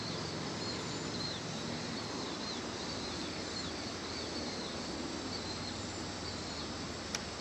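Evening outdoor ambience: a steady background hiss with a repeated high chirp, two to three a second, from an insect or bird, fading out about two and a half seconds in. A faint single click near the end.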